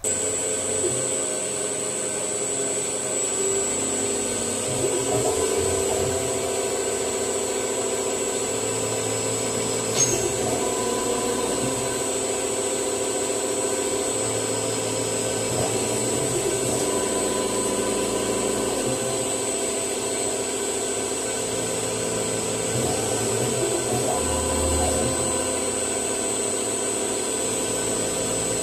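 CNC milling machine engraving an aluminum bar with a fine pointed cutter: a steady high-pitched whine over a hum, with lower motor tones that shift every few seconds as the cut moves, and the cutter scraping through the metal. One sharp click about ten seconds in.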